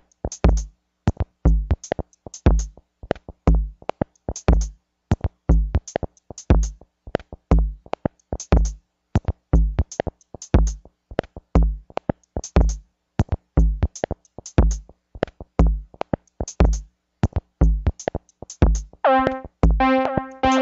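Electronic music: a steady drum-machine beat of deep kick drums and sharp, crisp hits. Near the end a sustained synthesizer chord comes in over the beat.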